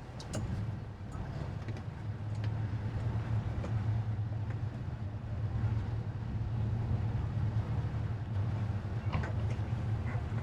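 Towboat's engine running steadily, a low hum that grows a little louder about two seconds in, with a few small knocks over it.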